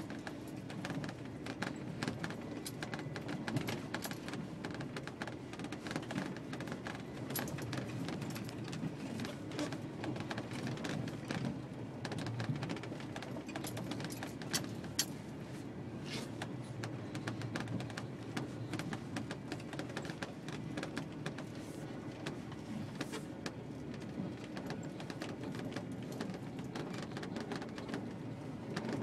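Cab interior of a 1989 Ford F-350 4WD brush truck driving slowly through snow: a steady low engine and drivetrain drone, with frequent light rattles and clicks from the cab. A few sharper clicks come about halfway through.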